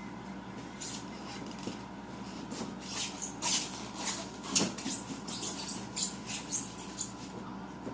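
Plastic wrapping and cardboard packaging being handled and torn open: irregular crinkles and scrapes, starting sparsely and coming thick and fast from about two and a half seconds in until near the end.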